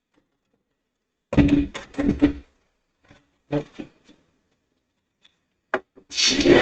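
Knocks and clunks from a metal PC case and its hard drives being handled and fitted into the drive bays: a cluster about a second and a half in, a couple more about three and a half seconds in, and a louder run near the end.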